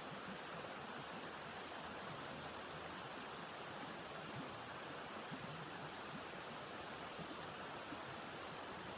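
Steady rushing of blizzard wind.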